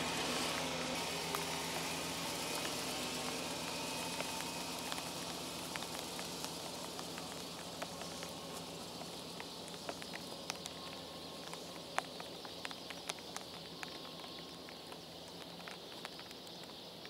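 Full-size van's engine running as the van creeps away across a soft grass field, the sound fading steadily as it recedes. From about the middle on, scattered sharp clicks sound close to the microphone.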